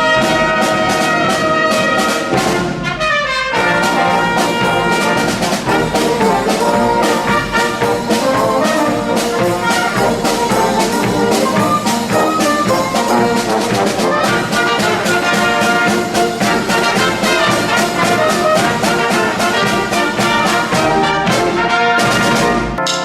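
Wind band playing, brass to the fore with trumpets and trombones, and percussion marking a steady beat.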